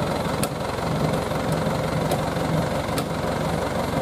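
Tow truck's engine idling steadily with a low, even throb, and a few sharp clicks about half a second, two and three seconds in.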